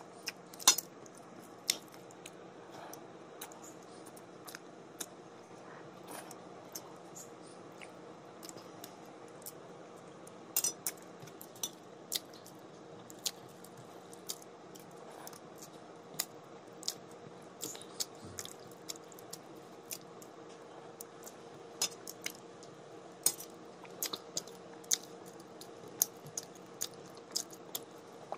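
A person eating rice mixed with egg curry by hand from a steel plate: irregular sharp clicks and smacks of chewing and of fingers scraping the plate, over a faint steady hum.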